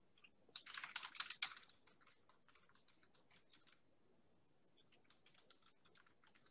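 Faint typing on a computer keyboard: a quick run of keystrokes about a second in, then scattered, lighter taps.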